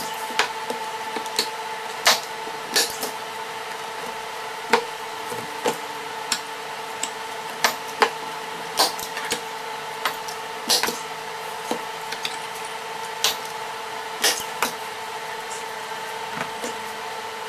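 Sharp, irregular clicks and knocks from canvas-stretching work on a wooden frame, about one a second, over a steady hum.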